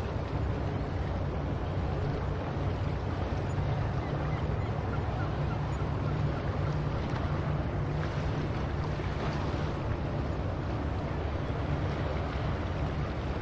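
Steady seaside ambience: a continuous wash of ocean surf and wind with a heavy low rumble and no distinct gull calls.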